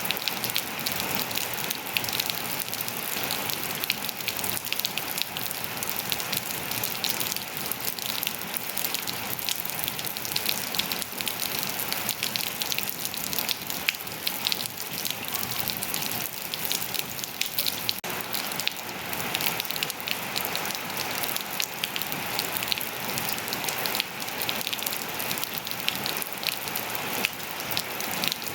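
Steady rain falling on surfaces, a dense even hiss made up of countless small drop impacts, with no change in strength.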